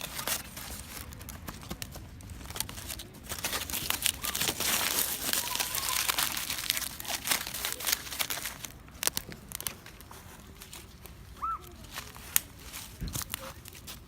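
Crinkling and rustling handling noise with many sharp clicks, busiest about four to seven seconds in, then thinning out to a few isolated clicks and a low thump near the end.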